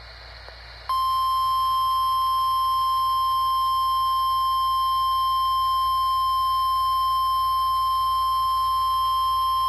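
NOAA Weather Radio 1050 Hz warning alarm tone: one steady, unbroken tone that starts about a second in and holds at a constant level. It is the alarm-device test of the weekly test, the tone that switches on specially built weather radio receivers.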